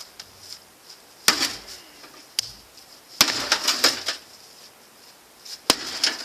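Sharp metal impacts on a microwave oven's sheet-metal casing as it is being smashed: three main hits, about a second in, near the middle and near the end, with loose parts rattling after the middle hit.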